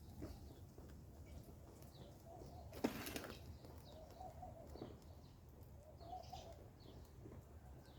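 Faint bird calls, short arched notes repeating every couple of seconds, with one sharp click about three seconds in.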